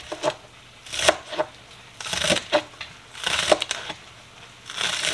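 Chef's knife slicing green onions on a plastic cutting board: quick runs of knife taps on the board, coming in short bursts about once a second.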